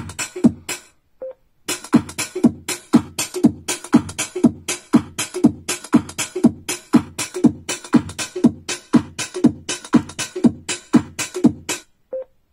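Electronic instrumental with a drum-machine beat of deep kick drums, about two a second, played through an Ortizan X10 Bluetooth speaker. The music cuts out twice, about a second in and near the end, each gap holding a short beep: the speaker's prompt tone as its equalizer mode is switched.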